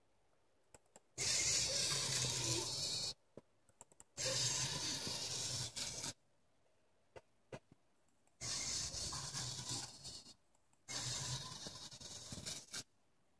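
Robotis Dynamixel servo motors of a three-joint robot arm whirring through their gears in four bursts of about two seconds each. Each burst is one move of the arm between set positions.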